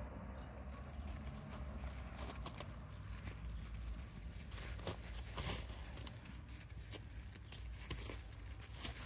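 Irregular crunching and crackling of crusty old snow under a dog's paws and nose and a walker's footsteps, over a steady low rumble.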